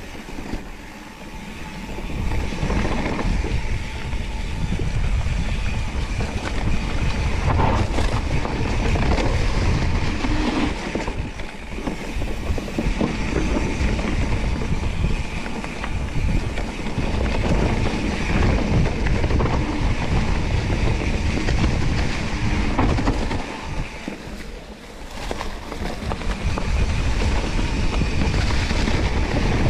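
Mountain bike being ridden over a rough trail: steady rumbling tyre and wind noise with many small rattles and knocks, easing briefly near the start and again about five seconds before the end.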